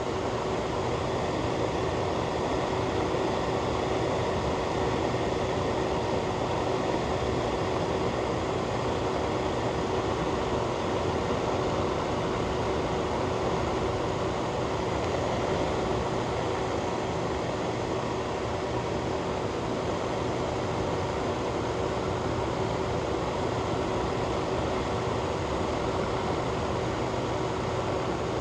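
Fan running steadily: an even rushing of air with a constant low hum.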